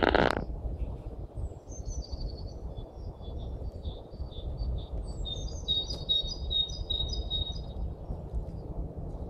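Wild birds calling and singing: a loud, harsh call right at the start, then a songbird's high, quick song of short notes. Near the end the song becomes one note repeated about two or three times a second. A steady low rumble runs underneath.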